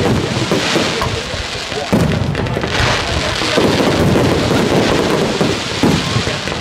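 Aerial fireworks display: a continuous dense crackle with shell bursts going off, and sharper reports about two seconds in and again near six seconds.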